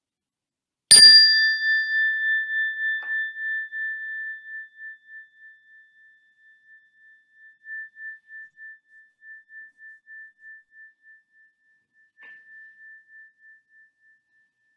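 Small meditation bell struck once, a clear high ringing tone that wavers slowly as it fades over several seconds, marking the group's silent meditation. A light tap follows about two seconds later, and near the end a softer second strike briefly brings the tone back.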